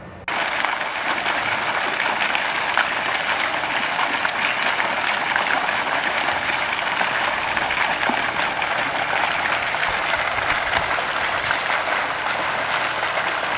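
Steady splashing of a garden pond fountain, water jetting up and falling back onto the pond surface. It sets in suddenly just after the start and holds level throughout.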